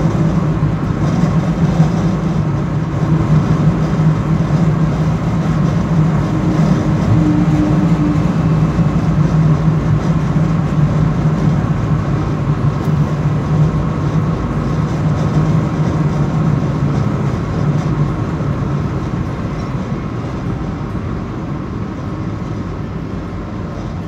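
Inside the cabin of a Subaru Forester with a 2.0-litre flat-four engine cruising at about 100–110 km/h: a steady low drone of engine and road noise, easing off a little near the end.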